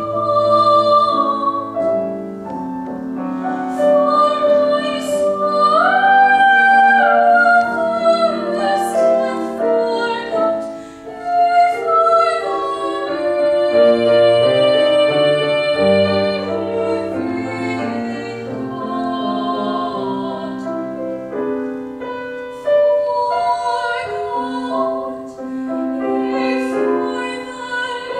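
A young woman sings a classical solo with piano accompaniment. Her voice carries long held notes and leaps up about six seconds in, over the piano's lower chords.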